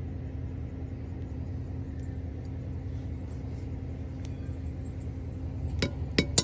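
Steady low motor hum. Near the end, a few sharp metallic clinks of a fork tapping against a cast-iron Dutch oven.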